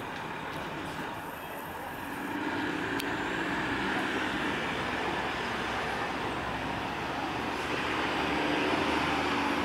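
Road traffic noise: a steady rumble and hiss of vehicles, growing louder about two seconds in as a vehicle draws near.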